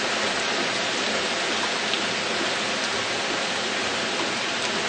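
Floodwater pouring over and through a gap, a steady rushing hiss of water.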